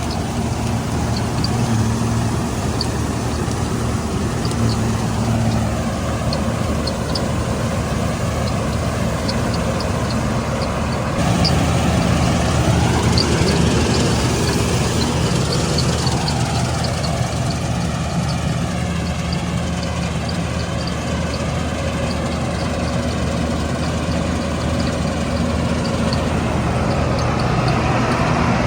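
Combine harvester running steadily while harvesting wheat, its diesel engine giving a constant low drone under load, growing louder about eleven seconds in.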